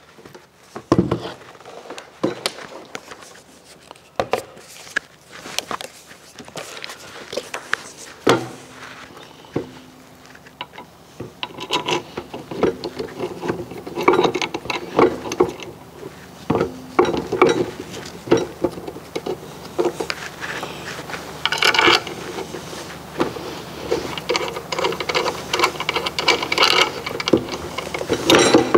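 Handling noise from a Vevor portable bandsaw being fitted back onto its steel stand: irregular metal clicks, knocks and rubbing as the saw and its mounting are worked by hand, busier in the second half. The saw's motor is not running.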